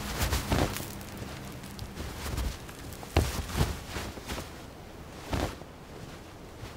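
Rustling scuffs and soft thumps of bodies rolling and shifting on dry grass and sandy ground, a handful of separate scrapes that thin out after about five seconds.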